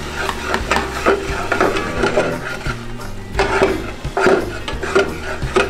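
A spoon stirring and scraping vegetables around a large stainless steel stockpot in a series of irregular scrapes and knocks, with sizzling from onions cooking in very hot canola oil.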